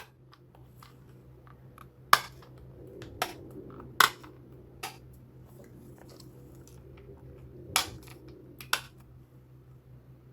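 Sharp plastic-and-metal clicks and knocks from a HAZET cordless impact wrench being handled, about six in all, the loudest about two and four seconds in.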